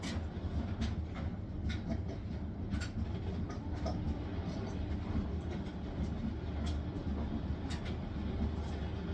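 Hisense washing machine spinning: a steady low rumble from the drum, with sharp clicks or light knocks at irregular intervals about once a second.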